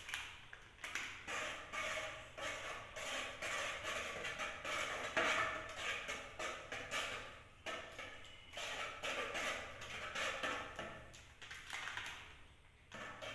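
Wire whisk beating batter in a metal pot: quick, irregular clinks and scrapes of the tines against the pot's sides and bottom, with short pauses between bursts of strokes.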